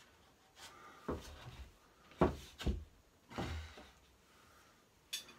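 A handful of irregular knocks and thumps as a tight-fitting sheet of drywall is pushed and knocked up into a ceiling opening against its wood framing; the sharpest knock comes just over two seconds in.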